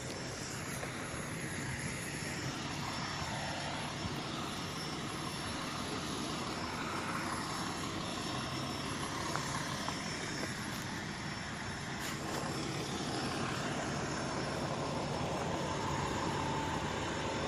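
Steady rumble of vehicle engines and street traffic, with no siren.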